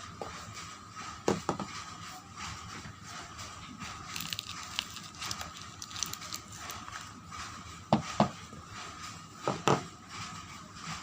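Soap packaging being handled and unwrapped: light rustling and crinkling, with three pairs of sharp taps, about a second in, at about eight seconds and near the end.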